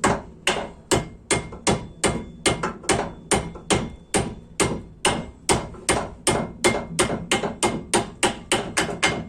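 Hammer blows driving a brake pad locking pin through a Brembo brake caliper, about three sharp strikes a second, quickening slightly toward the end. The pin is a tight fit and is being hammered until it sits flush with the caliper.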